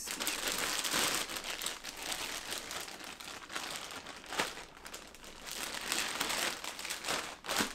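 Clear plastic bag rustling as hands pull it off a large lens, loudest in the first second or so and again near the end.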